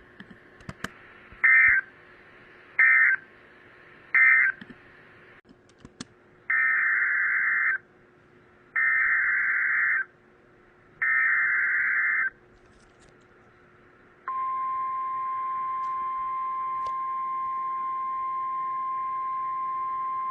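Emergency Alert System data tones from a NOAA Weather Radio broadcast. Three short warbling digital bursts close one message, three longer bursts carry the header of the next alert, and then, about 14 seconds in, a steady single-pitch alert tone sounds to announce the coming warning.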